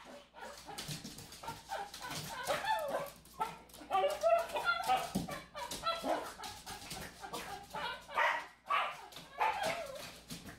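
Small dog barking and yipping over and over in excited play, a quick string of short barks while it jumps at a balloon.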